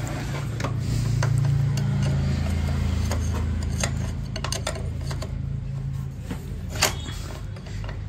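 Irregular small metal clicks and taps of hand tools on metal parts as locking tabs are fitted to secure a freshly tightened nut on the scooter's engine, with one sharper knock near the end. A low drone runs underneath and fades out after about six seconds.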